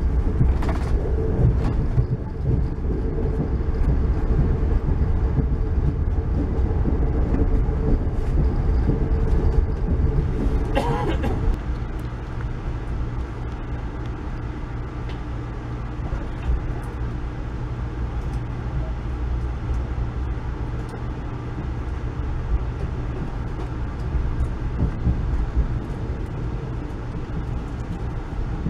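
Steady rumble of an Amtrak Northeast Regional passenger car's wheels and running gear on the rails, heard from inside the coach, with a steady tone under it for the first part. About eleven seconds in comes a brief squeal, and after it the rumble is a little quieter.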